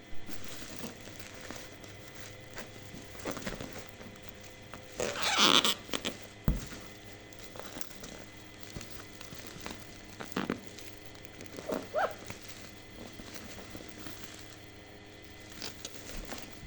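Product packaging being handled: irregular crinkling and rustling with scattered light clicks and knocks. The loudest is a burst of rustling about five seconds in, followed by a dull knock.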